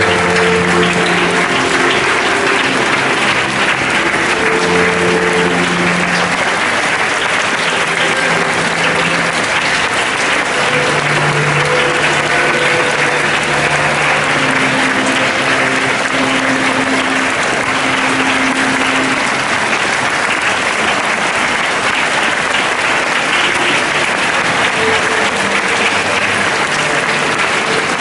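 A large crowd applauding steadily and without a break, over slow music with long held notes.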